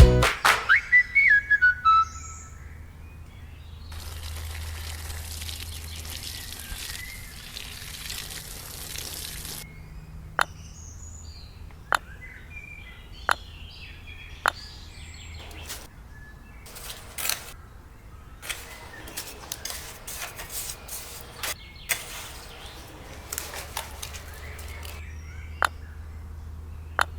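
Birds chirping, with a soft hiss for a few seconds and a run of sharp clicks or taps, several in a row about a second and a half apart through the middle.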